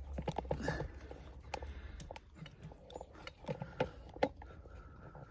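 Scattered soft knocks, scrapes and rustles of hands working through potting soil and potatoes in a container.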